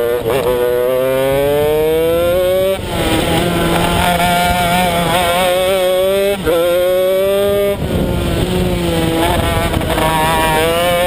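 Honda CR125 two-stroke single-cylinder engine of a shifter kart under hard acceleration, its pitch climbing and then breaking sharply at each gear change, about a quarter of the way in and again past halfway. It holds a lower, steadier note through a corner and starts climbing again near the end.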